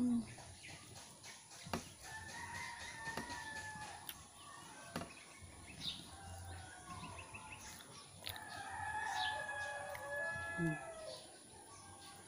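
A rooster crowing twice, one long call about two seconds in and another about eight and a half seconds in. There are light clicks of a knife and fork on a plate between the calls.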